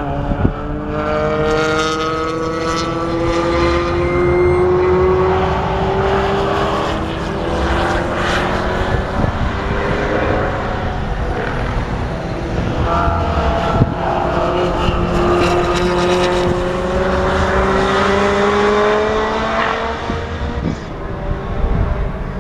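Racing cars on a circuit accelerating through a bend, their engines rising steadily in pitch for several seconds, first at the start and again from about halfway, over a constant low rumble.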